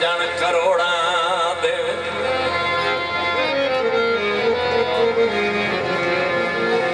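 Harmonium playing a melody in traditional Punjabi folk music, with steady held notes stepping from one pitch to the next. A wavering note sounds over it in the first couple of seconds.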